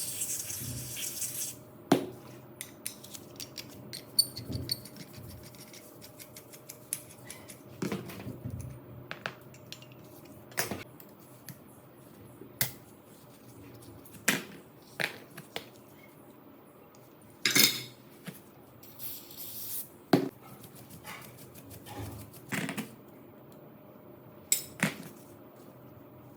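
Scattered sharp metallic clicks, taps and knocks from small rifle parts and tools being handled and set down on a workbench. Two short hisses come at the very start and about three quarters through.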